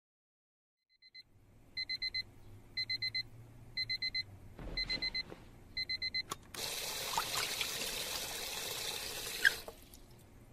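Digital alarm clock beeping in quick bursts of four, about one burst a second, five times, then a click as it is switched off. Then a water tap runs into a sink for about three seconds and is shut off.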